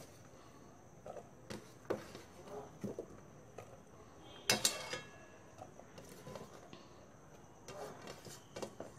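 Chopped vegetables being tipped into a pressure cooker of dal and water: scattered soft knocks and a few metal clinks, the loudest clink about four and a half seconds in.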